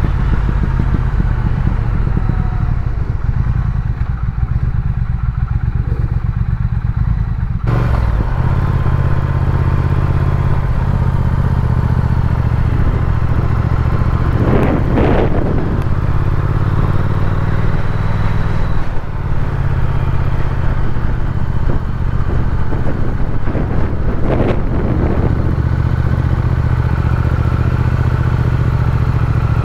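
Triumph Speed Twin's parallel-twin engine running steadily at low town speed, heard from the rider's seat. The sound brightens about eight seconds in, and two brief rushes of noise rise over it, one about halfway and one later on.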